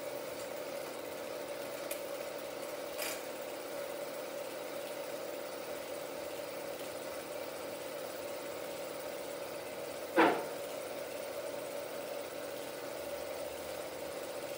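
16mm film projector running with a steady hum, with a faint click about three seconds in and one loud, sharp click about ten seconds in.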